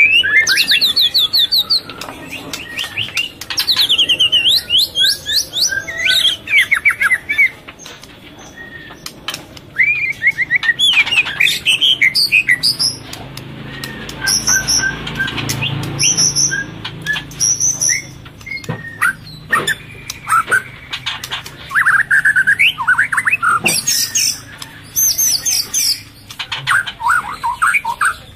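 A murai songbird singing loud, varied phrases of rapid repeated notes, trills and whistles, one burst after another with short pauses. It is the song of a murai in breeding condition, of the kind used as a lure call to provoke other males.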